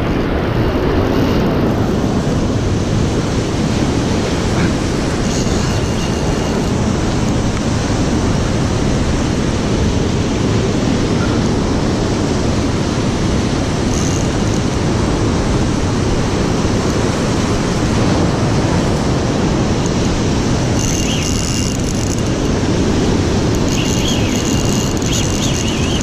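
Heavy surf washing over shoreline rocks: a steady, loud rush of churning water.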